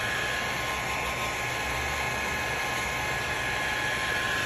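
Heat gun running steadily: a constant rush of blown air with a faint high whine from its fan, warming paint protection film so it can be shrunk and rolled around a panel edge.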